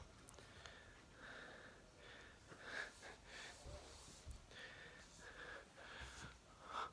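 Blue Staffordshire Bull Terrier breathing hard through its nose as it plays with a plush teddy bear: a run of short, quiet, noisy puffs about twice a second, with a few soft thumps underneath.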